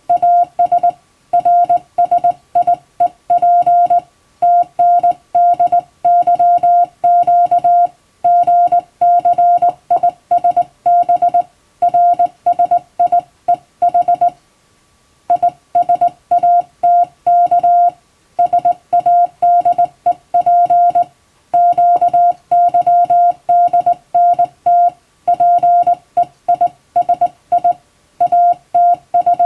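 Hand-sent Morse code (CW): a single steady tone keyed on and off in dots and dashes at an even sending pace, with a pause of about a second about halfway through.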